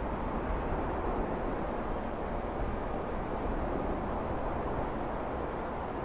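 Steady rushing of a shallow stream running over stones, with a low rumble beneath it.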